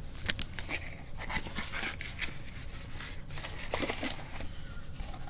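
Packaging being opened by hand: irregular crinkling and tearing with sharp clicks scattered through.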